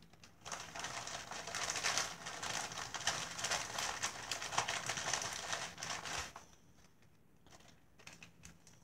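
A plastic packaging bag crinkling and rustling as it is handled and rummaged through, for about six seconds, then stopping; a few faint taps follow.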